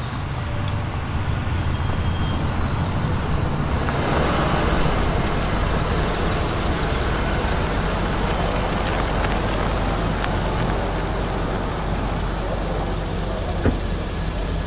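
Cars rolling slowly over a cobblestone driveway, a steady rumble of tyres and engines, with one short knock near the end.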